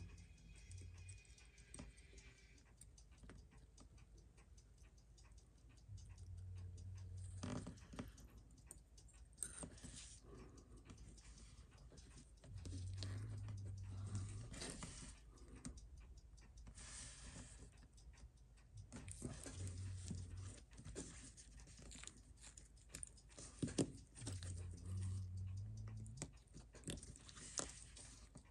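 Small metal clicks and scrapes of steel tweezers working in an open Seiko 6309 watch case and movement, with a few louder clicks. Low, tuneless humming comes and goes in short stretches of a second or two.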